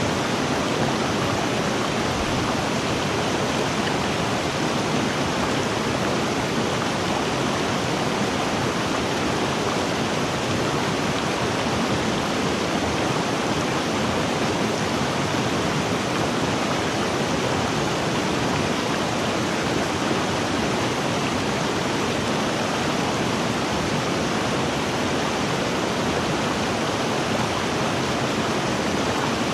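River water rushing and splashing steadily, an even unbroken roar of flowing water.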